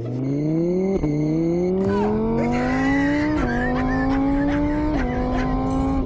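Car engine accelerating through the gears: its pitch climbs, drops sharply at each of three upshifts, then holds steady near the end.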